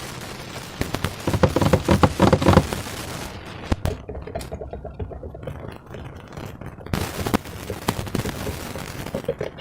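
Slime and balloon rubber being handled: bursts of rapid crackling, squelching clicks, heaviest a second or so in, then scattered sharper clicks.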